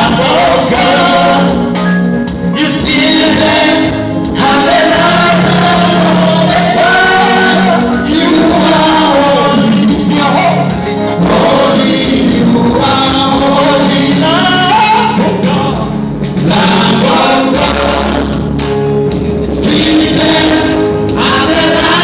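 Gospel worship music: voices singing over a steady instrumental accompaniment.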